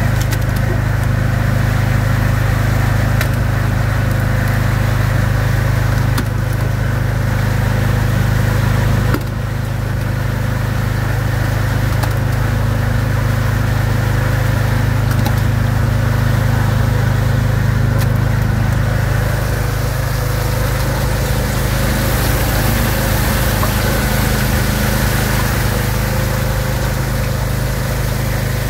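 Rotary drum screen machinery running as it separates solids from effluent wastewater: a steady low hum with a hiss of noise over it, dipping slightly about nine seconds in.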